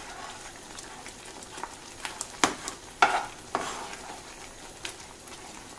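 A spatula stirring thick semolina (rava kesari) cooking in boiling water in a nonstick pan, working out lumps, over a steady soft sizzle. A few sharp knocks and scrapes of the spatula against the pan come around the middle.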